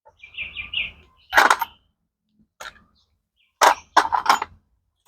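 Tools and metal parts clinking and knocking in a few short bursts, one about a second in and a quick cluster near the end, as a motorcycle clutch cable and its fittings are handled.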